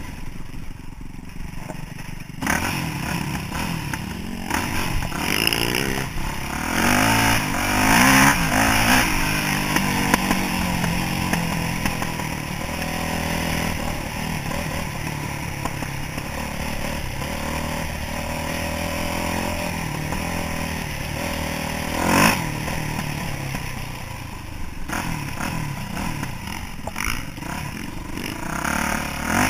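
Yamaha YZ426F's single-cylinder four-stroke engine under way on a dirt trail, its pitch rising and falling with the throttle. Quieter for the first couple of seconds, then it picks up and revs harder; a short loud burst comes about 22 seconds in.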